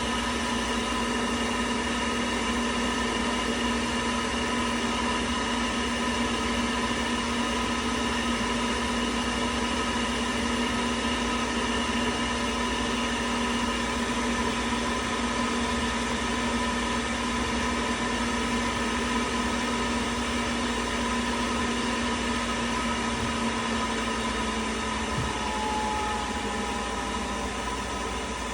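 Worcester Bosch 30i combi boiler firing on hot-water demand, a steady mechanical hum with several held tones. It keeps running, as it should once the new plate heat exchanger is fitted, instead of overheating and cutting out. About three-quarters of the way through, one low tone stops with a faint click and the sound drops slightly.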